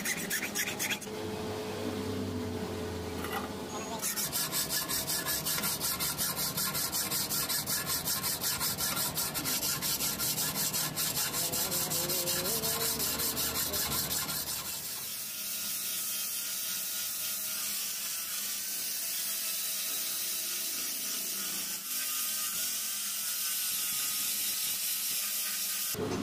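Hand file rasping back and forth across the steel of a knife blade made from an old file, in quick regular strokes; past the middle the strokes blur into a smoother, steadier rubbing.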